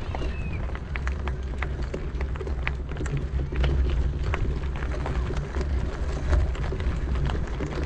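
Bicycle rolling along a gravel path: a steady low rumble with scattered clicks and crunches from the tyres and bike. A short high chirp sounds near the start.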